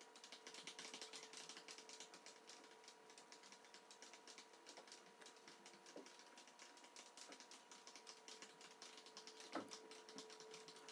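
Faint, rapid, irregular crisp clicking of a Chinese mantis chewing a wolf spider with its mandibles, over a faint steady hum. There is one soft knock near the end.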